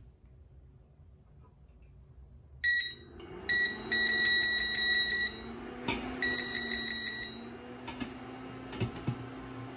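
Burton induction cooktop beeping as its touch buttons are pressed: two short beeps, then two longer ones. From about three seconds in, the cooktop hums steadily as it starts heating. Near the end come a few light metal clinks as a steamer tier is set on the pot.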